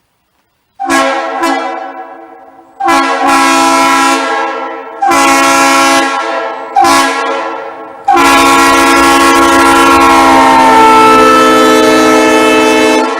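Multi-note train air horn sounding a chord: two quick toots, then three blasts of a second or two each, then a long blast of about five seconds that cuts off sharply.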